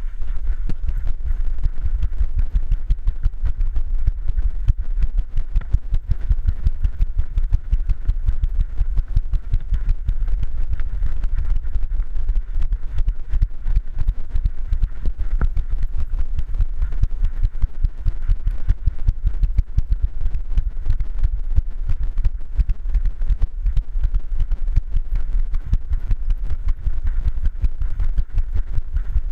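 Dense, rapid knocks and low rumble from a GoPro strapped to a running dog, jolted with every stride, mixed with the dog's footfalls on the trail.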